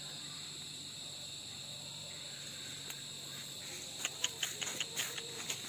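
Crickets trilling steadily at a high pitch in the night. About four seconds in, a quick run of sharp ticks, roughly five a second, starts over the trilling.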